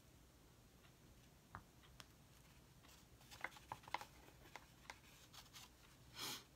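Near silence with a few faint small taps and clicks as a round foam paint dauber is dabbed in paint on a plate and pressed onto canvas, and a brief soft swish near the end.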